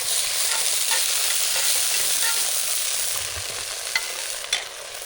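Venison strips frying in simmer sauce in a pan over a campfire, with a steady sizzle as they are stirred. The sizzle eases a little after about three seconds, and a couple of sharp clicks come near the end.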